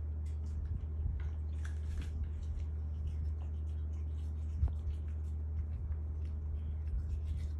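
Shih Tzu puppy chewing and licking at a toothbrush as its teeth are brushed: scattered small wet clicks and smacks. A steady low hum runs underneath.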